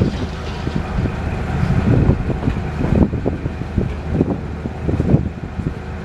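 An engine running steadily, with irregular low thumps and clatter over it.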